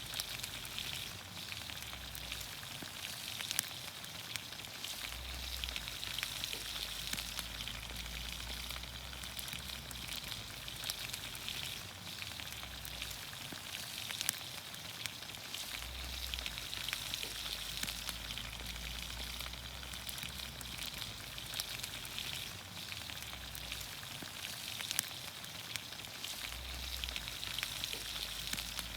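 Vegetables (green beans, onions, carrots, potatoes) cooking in olive oil over a campfire, sizzling steadily, with many small pops and crackles.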